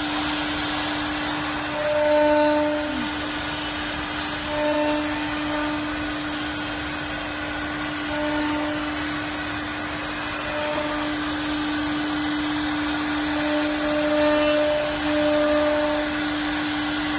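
CNC router running: a steady hum with a noisy whir over it, the sound swelling briefly every few seconds.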